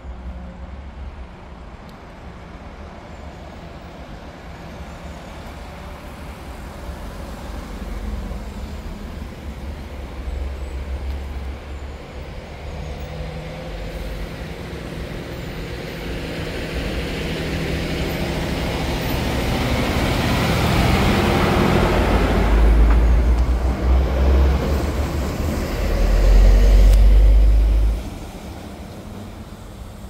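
A heavy motor vehicle running nearby, its engine hum and road noise growing steadily louder to a peak about twenty to twenty-five seconds in, as if it is passing close by. A deep rumble then cuts off suddenly about two seconds before the end.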